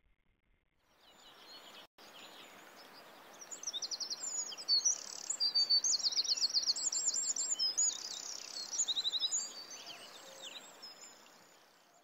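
Songbirds singing in rapid, repeated high trills and chirps over a steady outdoor hiss. The sound fades in about a second in and is loudest through the middle.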